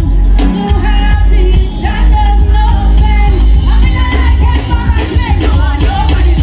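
Live concert sound from a stage PA: a singer's voice over a band or backing track with heavy bass, loud and dense, picked up from within the crowd.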